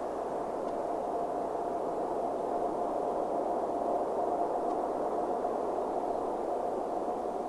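Jet engines of an Airbus A380-861, four Engine Alliance GP7270 turbofans, heard from afar as the airliner comes in to land: a steady rumble with a constant whine, swelling slightly about halfway through.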